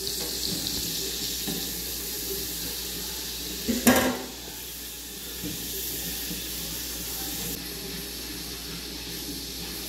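Garlic sizzling in oil and melting butter in a small saucepan: a steady hiss, with one loud clack about four seconds in.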